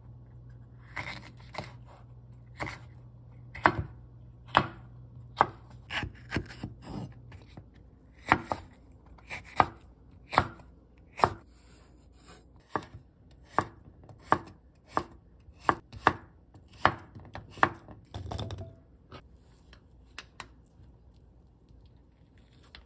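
Chef's knife chopping vegetables on a wooden cutting board, dicing a yellow bell pepper at first, in a steady run of sharp strokes, about one or two a second. Near the end only a few faint taps remain.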